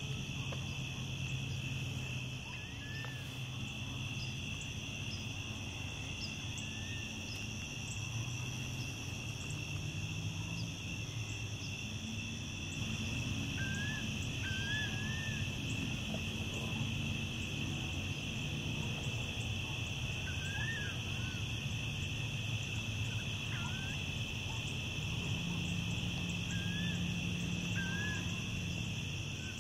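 Evening insect chorus, a steady high-pitched trilling, with scattered short bird calls over it and a low steady hum underneath.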